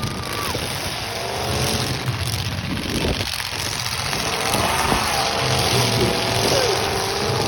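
Demolition derby cars' engines running and revving, several at once, their pitch rising and falling over a steady rumble.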